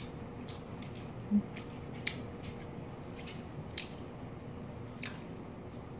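Eating and utensil sounds: wooden chopsticks clicking lightly against a glass bowl of cold noodles and a plate of kimchi, a dozen or so faint ticks spread out, with quiet chewing. One brief low thud about a second in, over a faint steady hum.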